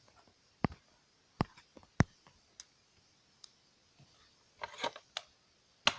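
Small sharp clicks and taps as a quartz wristwatch is handled and worked apart. Single clicks come about a second apart, with a quick run of clicks near the end.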